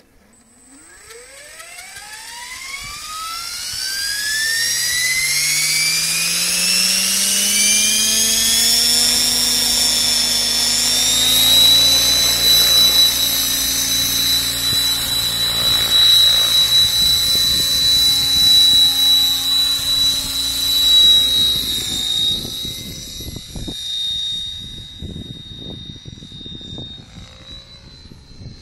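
Compass 7HV electric RC helicopter spooling up: the Scorpion motor's whine climbs steadily in pitch for about ten seconds, then holds a loud, steady high whine as the helicopter lifts off and flies. The sound drops away over the last few seconds as it climbs away.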